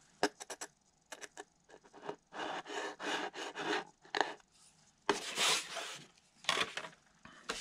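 Back of a No. 11 hobby knife blade scratching a hairline groove through the coating of a phenolic sheet: a few short ticks, then several longer scraping strokes.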